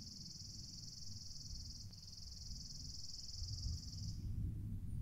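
A steady, high-pitched insect trill with a rapid fine pulse. It breaks briefly about two seconds in and stops about four seconds in, over a faint low rumble.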